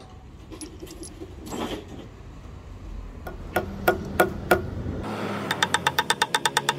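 Small hammer tapping a .45 ACP brass cartridge case used as a punch on the wooden cross wedge in an axe head: four separate taps, then quick even light taps at about seven a second near the end. Before that, a brief clink of loose brass cartridge cases.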